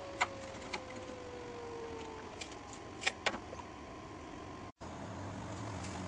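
A few light metallic clicks and taps from handling the welded steel rack frame, over a steady background hiss, with a faint whine falling slowly in pitch and dying away in the first two seconds. The sound breaks off for an instant about three-quarters of the way in, and a low hum follows.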